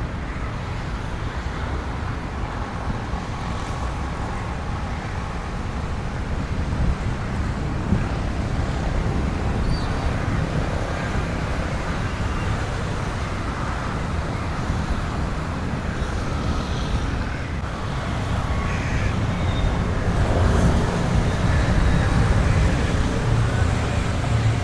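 Street traffic: a steady rumble of passing vehicles that grows louder near the end.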